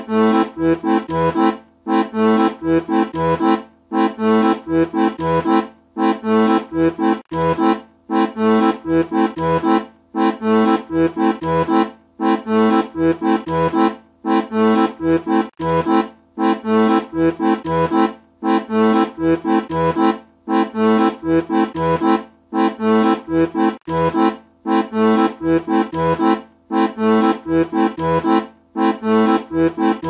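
Accordion playing a rhythmic tune of bass notes under chords, in short repeating phrases broken by a brief gap about every two seconds.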